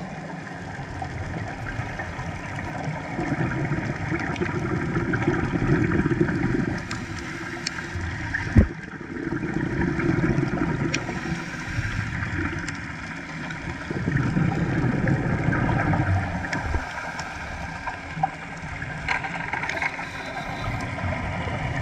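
Scuba diver's breathing heard underwater: long bubbling exhalations through the regulator, three of them about five seconds apart with quieter spells between. A single sharp knock sounds about eight and a half seconds in.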